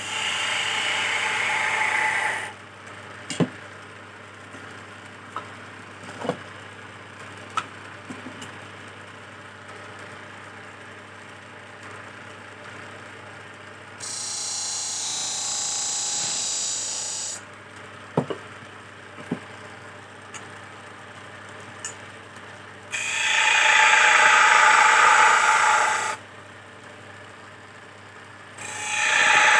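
Electric wood lathe running with a steady hum as a teak chess-piece blank spins. A hand tool cuts into the turning wood in loud scraping stretches at the start, about three-quarters through and again at the end, with a higher hiss in the middle as a flat piece of wood is pressed against the spinning blank. A few sharp knocks come from the tool striking the tool rest.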